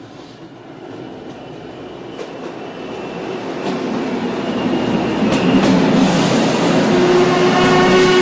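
A train approaching and getting steadily louder, with a few sharp clicks; high steady tones join the rumble after about five seconds.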